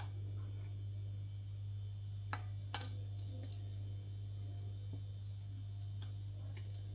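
A few light clicks of a spoon against a nonstick pot as spoonfuls of ghee are dropped in, over a steady low hum.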